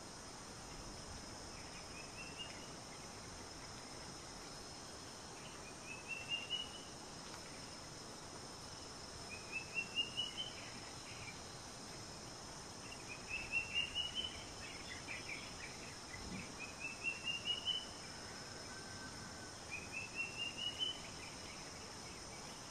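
A bird repeating a short phrase of quick notes that climb in pitch, about every three to four seconds, over a steady high-pitched insect drone.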